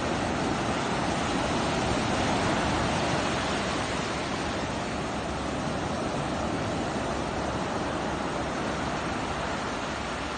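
Big ocean waves breaking and washing on a beach: a continuous rushing surf that swells a little a few seconds in, then eases.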